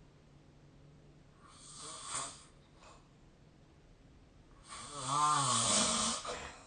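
A sleeping person snoring: a soft breathy breath about two seconds in, then a louder snore lasting about a second and a half near the end, with a wavering, buzzing pitch.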